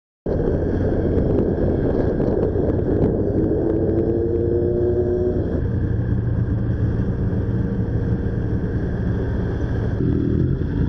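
Motorcycle engine running, heard through a helmet camera as a steady low rumble. Higher tones climb slightly about three to five seconds in, then stop suddenly.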